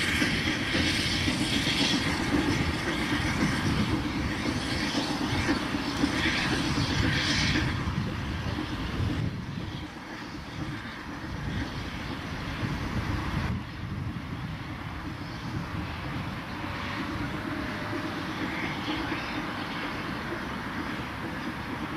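Steam locomotive hauling a train away, its exhaust working hard and fading with distance; the sound drops noticeably about eight seconds in and stays lower to the end.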